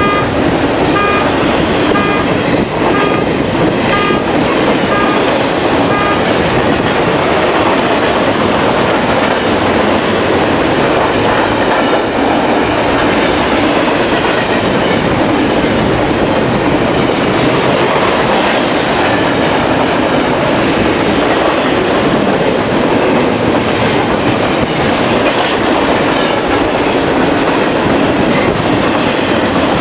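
A BNSF double-stack container freight train rolling past close by: a loud, steady rumble and rush of steel wheels on rail. For the first six seconds a high ding also repeats about twice a second, then stops.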